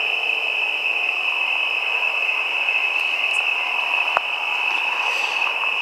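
Crickets trilling steadily in one continuous high note, with a single sharp click about four seconds in.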